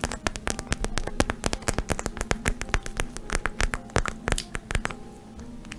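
ASMR tapping and scratching on a pad: a quick run of crisp clicks, about eight a second, that stops about five seconds in.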